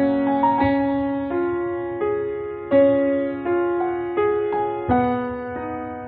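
Slow background piano music: notes and chords struck about every 0.7 seconds, each fading away.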